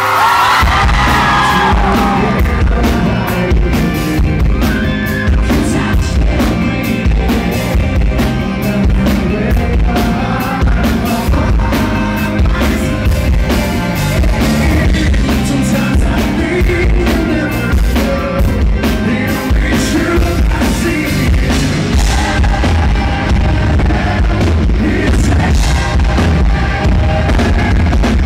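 Live rock band playing with a male lead singer, the bass and drums very heavy. The audience recording is badly distorted, overloaded by the loud bass and drums.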